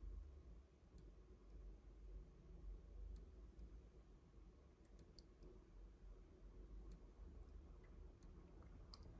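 Near silence with faint, sparse clicks, several coming in pairs about half a second apart: the small time-setting switch on a homebuilt Nixie clock being pressed and released.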